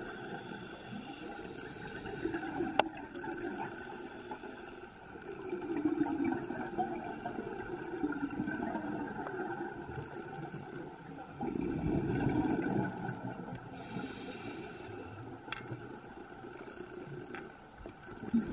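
Underwater recording of a diver propulsion scooter's motor whining steadily, with gurgling surges of the diver's exhaled bubbles about every six seconds. A sharp click about three seconds in.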